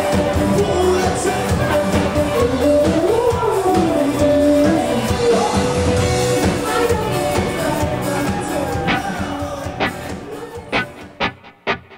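Live band music with a woman singing a gliding melody over the accompaniment, sounding like a large club room. The music fades away near the end, leaving a few separate sharp hits.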